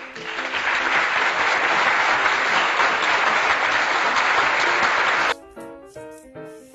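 Applause sound effect laid over light piano background music: it swells in over the first second, holds steady and loud, then cuts off suddenly about five seconds in, leaving the piano tune alone.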